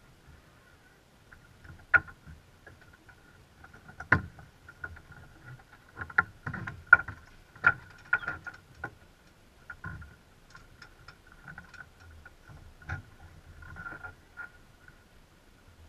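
Irregular knocks and clicks of crew working the winches and lines on a sailing yacht's deck, thickest in the middle stretch, over a faint steady high tone.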